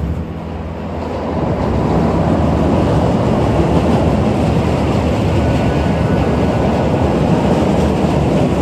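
Elevated rail train passing close by: a loud, steady rumble and rattle that swells in about a second in and holds.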